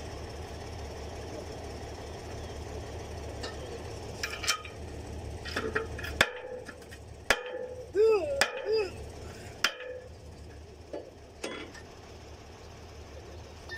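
Scattered metal clanks and knocks of wrenches and chain on the steel column pipe of a borewell pump as workers unscrew an 8-inch pipe joint, over a steady low engine hum. A short voice-like call cuts in about eight seconds in.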